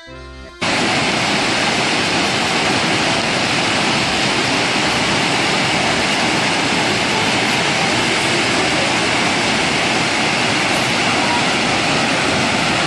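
Montmorency Falls heard up close: a loud, steady rush of falling water that cuts in suddenly after a brief snatch of accordion music.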